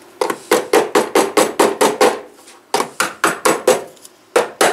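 Rapid sharp taps, about five a second, in three runs with short pauses. They come from knocking the small wedge clips onto the seam of a Mercedes W123 heater box housing.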